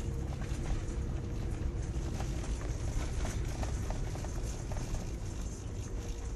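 Road noise inside a moving car: a steady low rumble from the tyres and engine, with faint irregular clicks and knocks.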